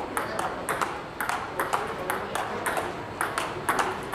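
Table tennis rally: a plastic ball clicking off rubber-faced bats and bouncing on the table in quick alternation, about four sharp clicks a second, from a forehand topspin drill on the diagonal.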